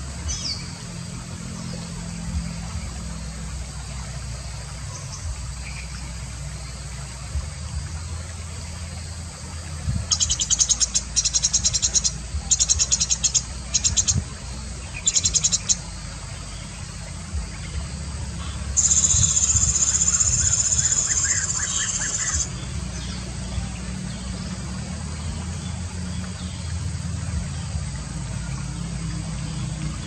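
Blue-throated bee-eater calling in several short bursts of rapid rolling trills about a third of the way in. This is followed by a loud, steady, high insect buzz lasting a few seconds, all over a steady low rumble.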